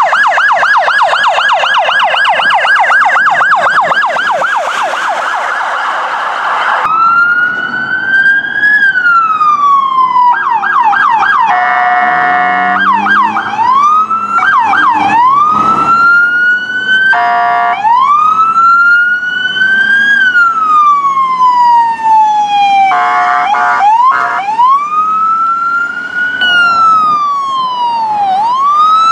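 Emergency vehicle sirens in succession. First a fast yelp siren from a police SUV. Then sirens wailing up and down every few seconds, switching briefly to yelp, broken by several short, steady blasts of a horn.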